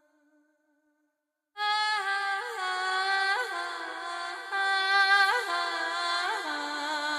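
Film background score: about a second and a half of silence, then a slow melody enters suddenly, held notes that slide up and down between pitches.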